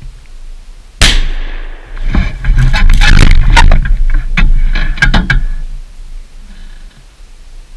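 A single gunshot at close range about a second in, its report dying away over about a second, fired at a black bear at the bait. It is followed by a few seconds of loud rustling and clattering close to the microphone.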